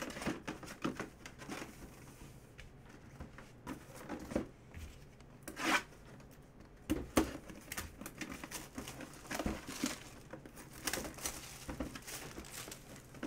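Clear plastic shrink wrap being torn and peeled off a cardboard box by hand: irregular crinkling and crackling with a few louder rustles.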